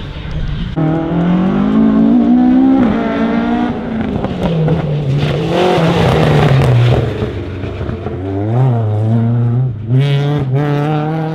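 Mk1 Ford Escort RSR race car engines revving hard through the gears on a circuit. Over successive passes the pitch climbs and then drops at each upshift.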